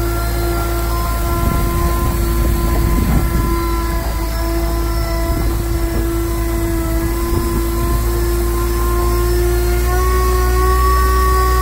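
Water tanker truck running its engine and water pump while the rear spray nozzle sprays water onto a dirt yard for dust control. A steady whine over a low rumble and the hiss of the spray; the whine rises slightly in pitch about ten seconds in.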